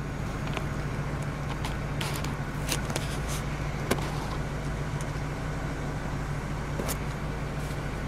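Ford Focus 1.6 petrol four-cylinder engine idling steadily, heard as an even hum from inside the cabin, with a few faint clicks.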